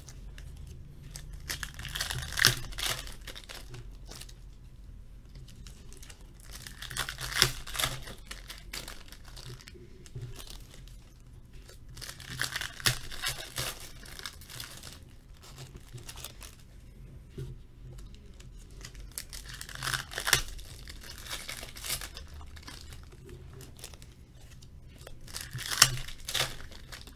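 Foil hockey card pack wrappers torn open and crinkled by hand, one pack after another, in five bursts about every five or six seconds.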